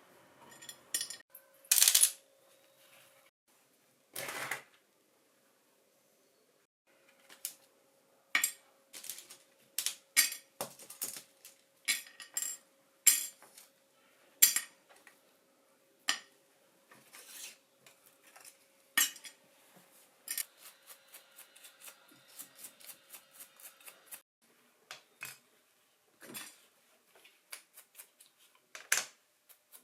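Small metal parts and hand tools being handled on a workbench, giving irregular sharp clinks and taps. There is a louder burst about two seconds in and a run of quick light ticks later on.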